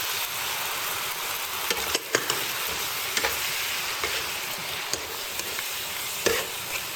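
Sliced beef and garlic sizzling in hot oil while being stir-fried with soy sauce, sugar and black pepper, with a spatula clacking against the pan several times.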